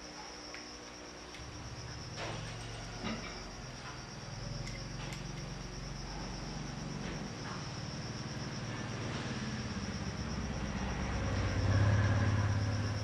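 Insects chirring steadily in the background, with a low hum that grows louder near the end and a few light knocks.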